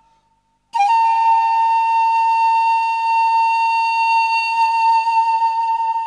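Music: one high, flute-like note held steadily for about five seconds. It starts abruptly about a second in, after a moment of silence.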